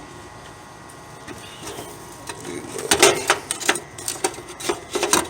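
Irregular clicks and knocks of small metal parts and wire connectors being handled in an air conditioner's electrical compartment, starting about halfway through and coming several times a second.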